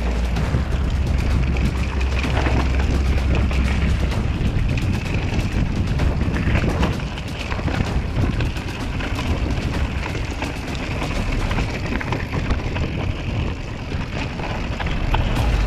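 Mountain bike riding down a rough, rocky trail: tyres crunching over loose stones and the bike rattling over bumps in a quick, uneven run of clicks and knocks, over a rushing noise of wind and rolling.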